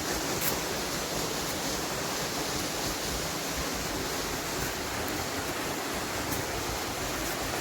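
Steady rush of the Maligne River's whitewater tumbling through the narrow canyon gorge.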